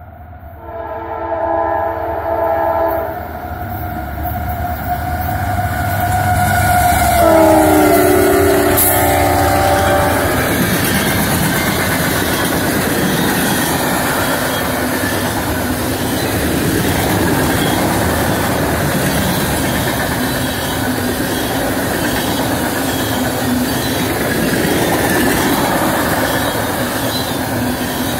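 Freight-train horn from a pair of GE CW44AC diesel locomotives, sounded in two long blasts; the second drops in pitch as the locomotives pass close by at their loudest. The train's tank cars then roll past with a steady rumble and clickety-clack of steel wheels on the rails.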